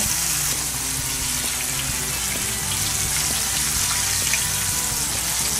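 Flour-dredged catfish fillets frying in hot oil in a cast-iron skillet: a steady, loud, crackling sizzle.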